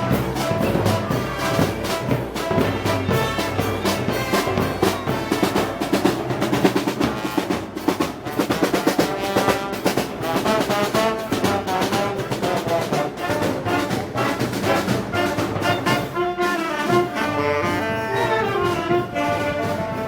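Brass band playing Moros y Cristianos festival music: trumpets and trombones over a steady beat of percussion.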